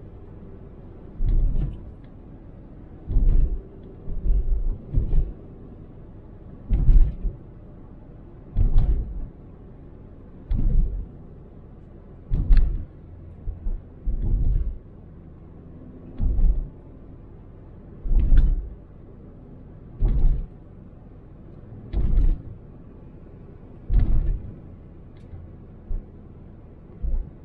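A car's tyres thumping over the flyover's expansion joints about every two seconds, some hits doubled as front and rear wheels cross, over a steady low road rumble heard from inside the cabin.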